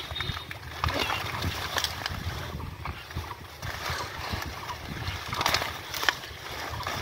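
Water hyacinth being pulled and pushed aside by hand in shallow, muddy water: irregular rustling and crackling of leaves and stems with small splashes, and a low rumble underneath.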